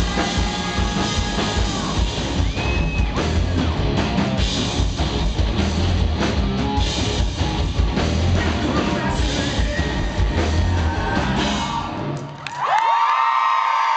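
Live rock band playing loud, with a male lead vocal over drums and electric guitar. The song ends about twelve seconds in, and the audience breaks into cheering and high-pitched screams.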